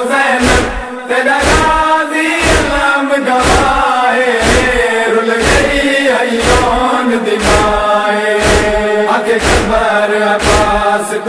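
Male voice chanting a noha, the Shia mourning lament, in a wavering melodic line over a steady beat of about two thumps a second.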